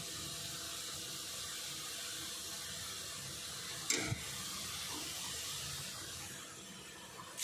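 Sliced onions frying in olive oil in a cast-iron pan: a steady soft sizzle, with one sharp tap about four seconds in.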